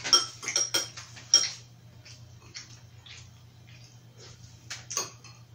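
Metal chopsticks and spoon clicking against ceramic bowls while eating, a cluster of sharp clicks in the first second and a half and a few more near the end, over a faint low steady hum.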